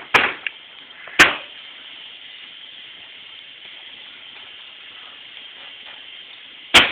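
Three sharp knocks over a steady hiss: two in the first second and a half, and one near the end.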